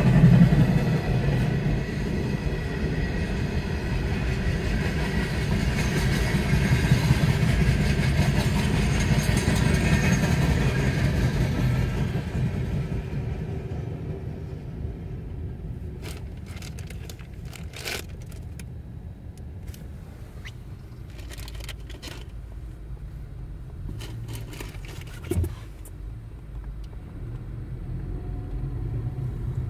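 Freight train cars rolling past a road crossing, heard from inside a waiting car: steady wheel-on-rail rumble that fades away a little under halfway through. After that the quieter run of the car, with a few short clicks and a brief thump near the end.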